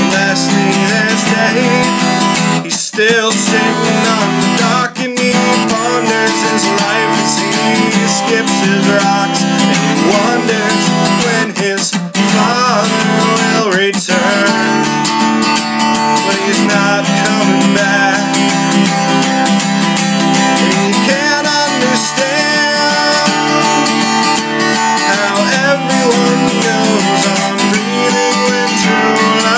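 Acoustic guitar strummed in chords, with a man's voice singing over it at times.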